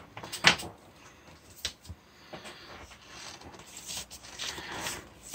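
Paper and cardboard handling: a large paper poster and an LP sleeve rustling and crinkling, with a sharp snap about half a second in and a longer stretch of rustling near the end.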